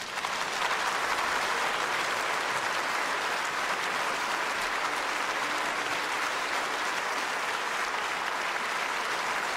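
Large theatre audience applauding. The clapping swells in the first half-second and then holds steady.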